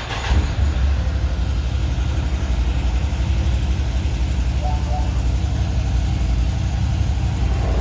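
Can-Am Defender side-by-side's engine starting up and settling into a steady idle.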